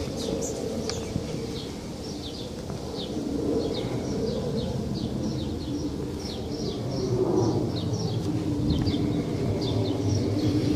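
Small birds chirping over and over, short high chirps that slide down in pitch, over a steady low rumble of background noise.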